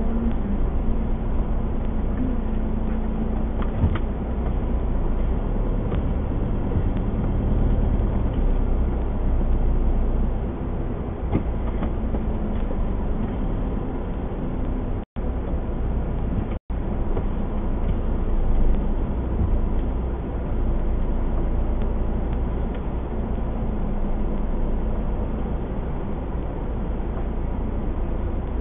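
Motorhome engine running as the vehicle crawls over gravel, heard inside the cab as a steady low rumble. The sound cuts out twice, very briefly, around the middle.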